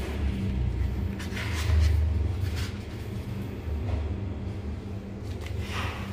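A steady low rumble with a faint hum underneath, and a few brief rustles and crinkles of aluminium-foil bituminous tape being pressed and smoothed onto a metal pipe by hand.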